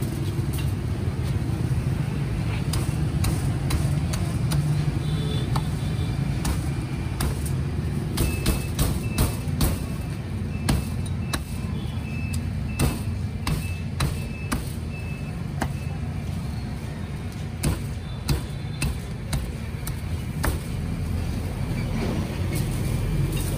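Heavy cleaver chopping deboned roast pork knuckle on a thick round wooden chopping block: a run of sharp, irregular chops, thickest and loudest in the middle stretch. A steady low rumble of road traffic runs underneath.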